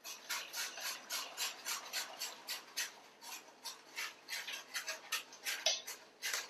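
Wire whisk scraping and rubbing against a fine-mesh metal strainer in quick repeated strokes, about four a second, forcing a thick sauce through the mesh and leaving the solids behind.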